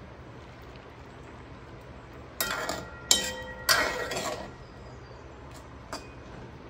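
Cookware clinking as a glass lid comes off an aluminium kadai and a steel ladle stirs inside it: three sharp ringing clinks about two and a half to four seconds in, then a small click, over a steady low hum.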